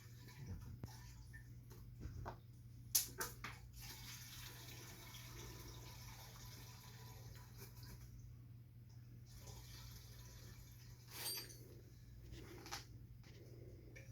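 Gasoline trickling into a small fuel tank, broken by a few sharp clicks, the loudest about three seconds in.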